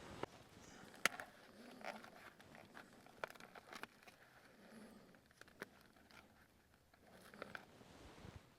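Faint handling noise of cookware and food being set up: a few light clicks and knocks, about a second, three and five and a half seconds in, over soft scraping and rustling.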